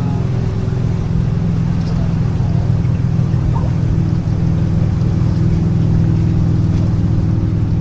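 Motorboat engine running at a steady pace, a low, even drone that holds without change.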